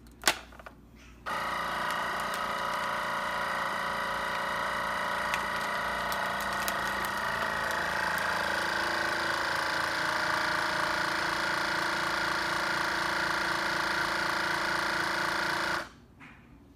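Countertop vacuum sealer's pump motor running steadily for about fourteen seconds as it draws the air out of a plastic bag, then cutting off suddenly near the end. A sharp click about a second before it starts, as the lid is pressed shut.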